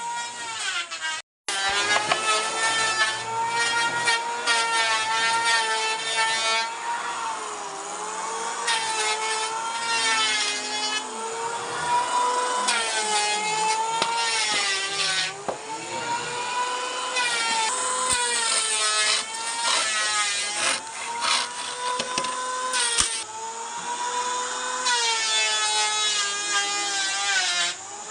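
A power tool's motor running steadily while working wood in repeated passes, each pass adding a rough cutting noise and a slight waver in the motor's pitch. The sound drops out completely for a moment about a second in.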